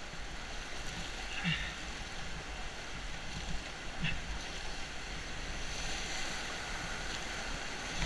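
Kennebec River whitewater rushing past a raft: a steady noise of fast-moving water.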